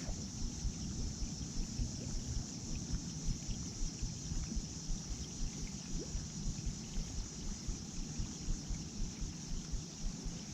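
Steady rain hiss with scattered faint drop ticks, and wind buffeting the microphone in an uneven low rumble.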